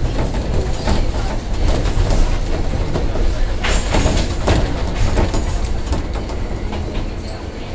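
Kyoto Randen tram running along the track, heard from inside the driver's cab: a steady low rumble with a run of clicks and knocks from the wheels on the rails, loudest about four seconds in and easing a little near the end.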